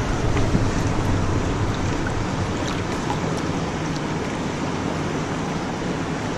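Steady rush of flowing river water close to the microphone, mixed with wind noise.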